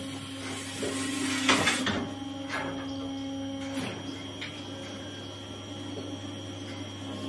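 Hydraulic pump of a homemade hoof-trimming crate running with a steady hum, its pitch stepping slightly as the valves are worked, with a few metal clanks from the crate about one and a half, two and a half and nearly four seconds in.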